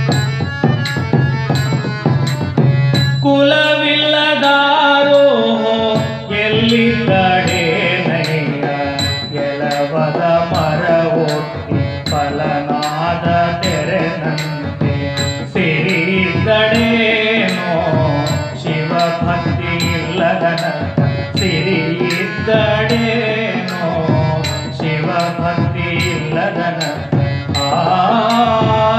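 A man singing a Kannada Shiva devotional song into a microphone, with harmonium and a small hand-held frame drum. The harmonium holds a drone for the first three seconds or so, then the melody comes in, while the drum keeps a steady beat of about two strokes a second.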